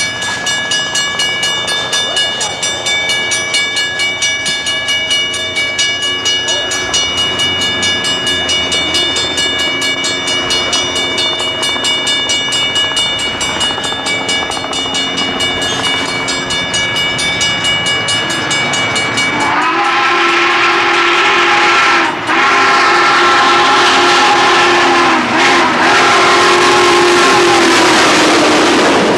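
Steam locomotive approaching at speed with a rhythmic exhaust beat, then, about two-thirds of the way in, its chime steam whistle blows loud and long, three sustained blasts with barely a break between them, as the engine passes close by.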